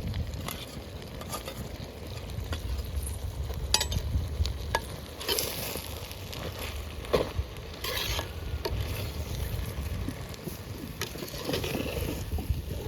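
Boti (tripe and intestine) frying in a pot of masala, stirred with a ladle: steady sizzling with scattered scrapes and knocks of the ladle against the pot, and louder hissing flares about five and eight seconds in.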